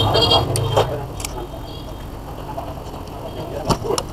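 Steady hum of road traffic, with a brief high squeak at the start and a few sharp clicks and taps from tools being handled.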